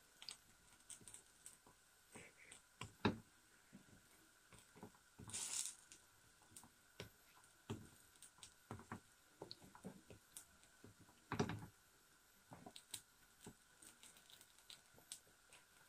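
Faint, scattered taps and scrapes of a wooden spatula pressing a gram-flour roti in a frying pan, with a few slightly longer scrapes around 5 and 11 seconds in.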